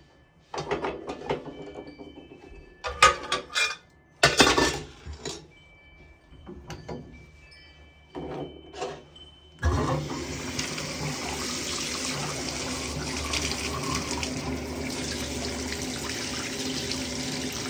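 A few sharp knocks and clatters of handling, then about ten seconds in the Jado shower faucet is opened and water starts running, a steady rush that continues.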